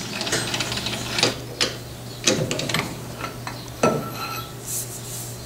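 Irregular light metallic clicks and knocks, about six of them, with some rubbing, from the lathe and its steady rest being handled, over a steady low hum.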